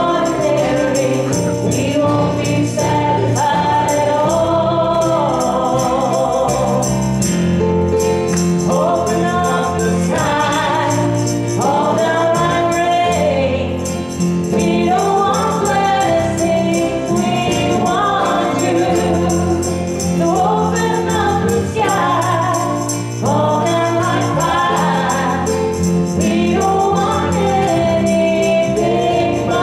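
A small group of singers on microphones singing a gospel worship song in harmony over instrumental accompaniment, with a steady beat ticking in the high end and sustained bass notes.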